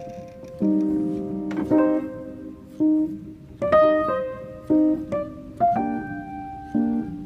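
Background piano music: notes and chords struck one after another, each starting sharply and fading away.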